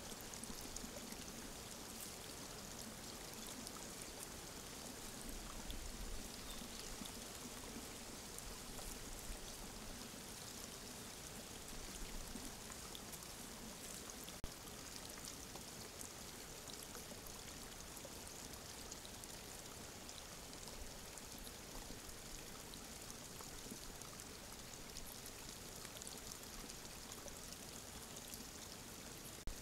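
Faint steady hiss of outdoor ambience picked up by a trail camera's microphone, with a few faint ticks.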